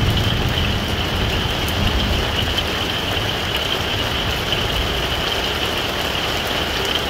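Heavy rain beating on a pop-up tent camper, heard from inside: a loud, steady hiss with a low rumble underneath.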